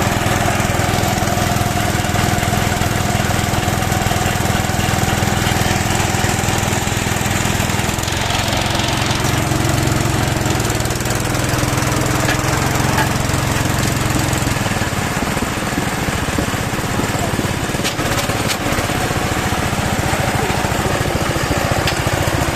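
Small water-pump engine running steadily, driving a well-drilling rig through a Suzuki Carry gearbox. Its note shifts about a third of the way in and again past halfway.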